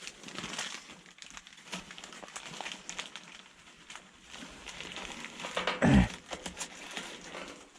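Crackling and rustling as kindling and dry wood are lit in the firebox of a Shevron wood-burning tent stove, with a dull knock about six seconds in.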